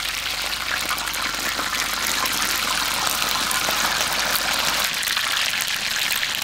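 A whole batter-coated chicken deep-frying in hot oil in a cast-iron pot: a steady, dense sizzle of bubbling oil with fine crackles. This is the first fry of a double fry, meant to cook the chicken evenly through.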